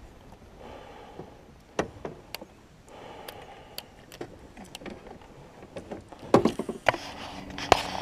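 Scattered clicks and knocks of fishing gear being handled in an aluminium boat, with heavier clunks about six seconds in and again near the end. A low steady hum comes in near the end.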